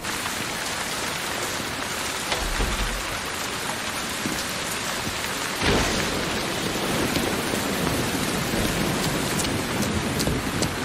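Heavy rain pouring down steadily, with a clap of thunder about six seconds in.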